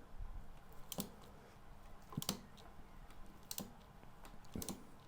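Hand tools clicking on metal as the fork clamp pinch bolts on the motorcycle's yokes are worked loose: a few faint, sharp clicks about a second apart, some in quick pairs.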